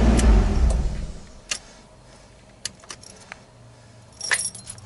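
A steady machine hum fades out about a second in. Then come a few light, sharp metallic clicks and a brief jingle about four seconds in, like keys or small metal parts being handled.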